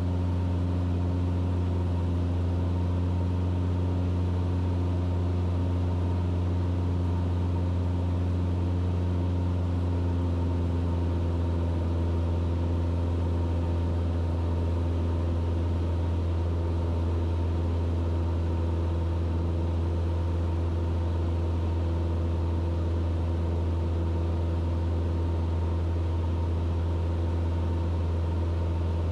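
Mooney M20E's four-cylinder Lycoming IO-360 engine and propeller droning steadily in flight, heard inside the cabin as a deep, even hum that does not change.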